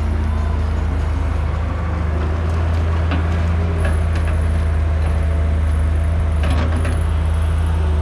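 JCB tracked excavator's diesel engine running steadily with a deep hum as the machine digs and swings a loaded bucket, with a few short knocks from the working gear near the middle and again toward the end.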